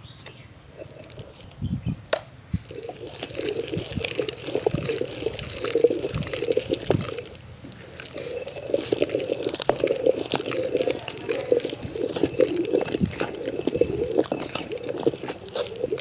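Thick, wet amla paste squelching as a stone pestle is turned by hand in a traditional stone grinding mortar: a dense wet churning full of small clicks. A couple of low knocks come about two seconds in, and the churning dips briefly about halfway.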